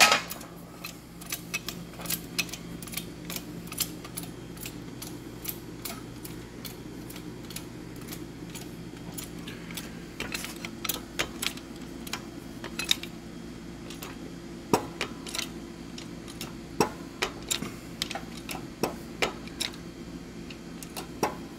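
Hydraulic bottle jack on a shop press being pumped by its long handle: a string of uneven metallic clicks and ticks as a new wheel bearing is pressed into an ATV front hub, over a steady low hum.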